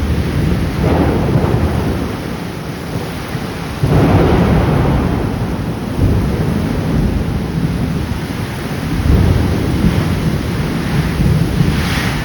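Heavy rain falling steadily, with thunder rolling in deep rumbling swells every few seconds; the loudest comes in suddenly about four seconds in.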